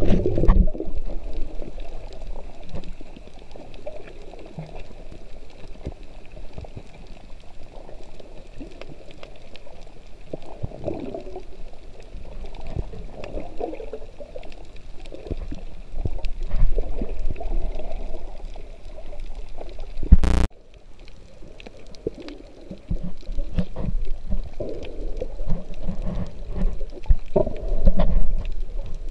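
Underwater sound picked up through a waterproof camera housing: muffled rumbling and gurgling water that swells and fades, with scattered faint clicks. About twenty seconds in there is one loud sharp click, after which it goes quieter for a couple of seconds.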